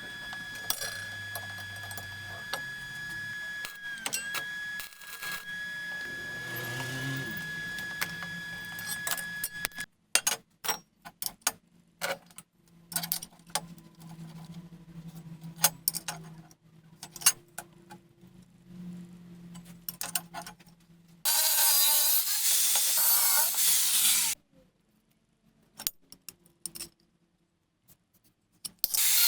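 Workshop sounds: a steady high-pitched motor whine for the first ten seconds or so, then scattered clicks and knocks of metal parts being handled. About three seconds of loud power-tool grinding come near the end.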